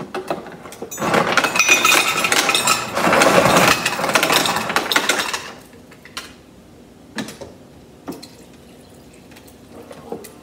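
Refrigerator door dispenser filling a water bottle: a loud clattering, clinking rush for about four seconds, then a few separate clicks and knocks as the bottle is handled.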